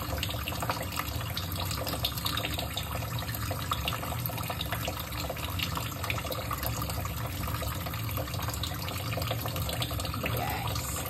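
Kitchen faucet running steadily into a stainless steel sink, the stream splashing over a wet puppy's coat as it is rinsed.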